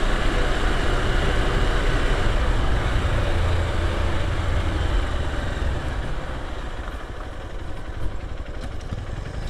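Motorcycle engine running while riding, with wind and road noise over it, easing off a little about six seconds in.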